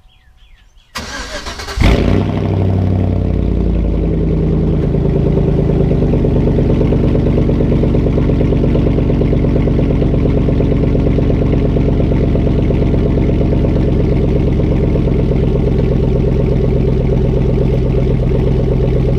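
A 2004 Chevrolet Silverado's 4.8-litre V8 being started: a brief crank of the starter about a second in, the engine catching with a flare just before two seconds in, then settling over a few seconds into a steady idle.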